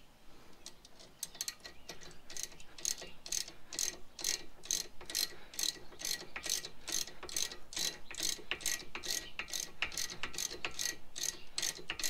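Hand ratchet wrench clicking in a steady run, about four clicks a second, as it is swung back and forth to unscrew a bolt on a Ford Edge front brake caliper. The clicking starts about a second in.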